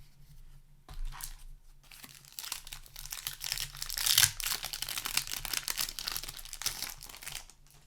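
Foil wrapper of a Magic: The Gathering booster pack crinkling and tearing as it is handled and opened, a dense crackling rustle that builds from about two seconds in and is loudest around the middle.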